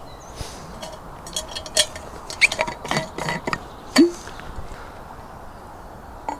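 A mug and flask being handled for a cup of tea: a run of light clinks and knocks over a few seconds, with the loudest about four seconds in and one last small knock near the end.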